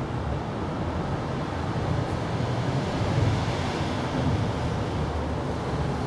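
Steady low rumbling background noise, like distant traffic or wind, with no distinct events.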